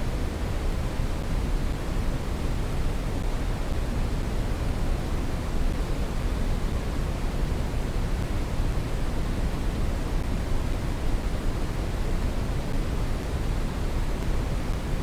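Brown noise: a steady, even rushing hiss weighted heavily toward the bass, with no tones or changes.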